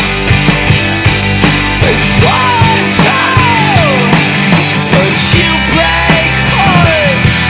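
Rock band playing an instrumental passage: drums keep a steady beat under sustained bass, while a lead instrument plays gliding, falling notes.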